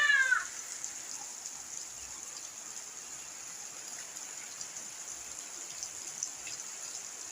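Steady rain falling, an even hiss with a few faint scattered drip ticks. In the first half-second, a cat's meow falls in pitch and fades out.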